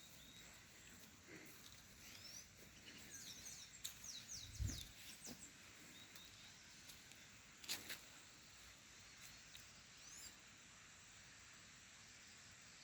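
Birds chirping faintly: a run of quick, falling high chirps a few seconds in and a couple more calls around ten seconds. A low thump near the middle and a sharp click a little later.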